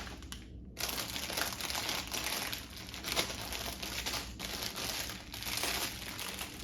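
Plastic Lego parts bags crinkling as they are picked up and handled.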